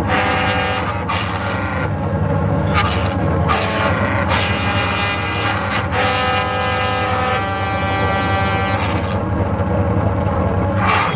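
Pipes of a fire-breathing calliope art car sounding held, horn-like chords played from a keytar, over a steady low rumble. The chords come in at the start and again through the middle, then drop away near the end, leaving the rumble.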